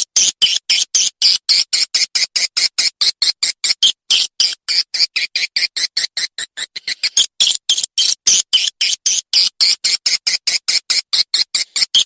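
Swiftlet call recording played as a lure for swiftlet farming: rapid high-pitched twittering chirps, about five a second, in an unbroken run.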